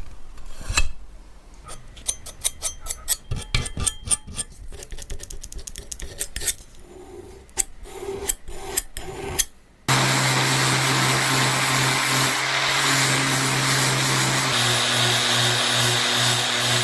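Clinks and knocks of handling. Then, about ten seconds in, an old electric potato peeler switches on and runs with a steady low hum and a rasping scrub, its tone shifting slightly a few seconds later.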